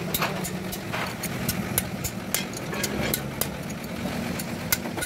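Short metallic clicks and clinks of an open-end spanner working the bolts of a truck differential's pinion housing, over the steady low hum of an engine idling.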